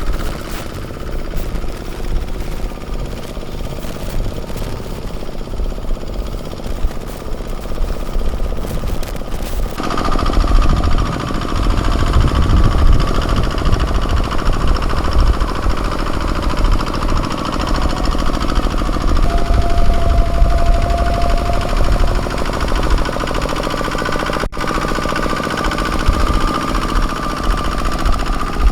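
Kubota ZT155 walking tractor's single-cylinder diesel engine chugging steadily while ploughing, with a rapid knocking beat. The sound turns abruptly louder about ten seconds in.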